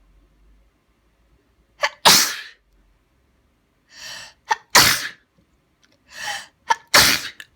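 A person sneezing three times, loudly, about two and a half seconds apart.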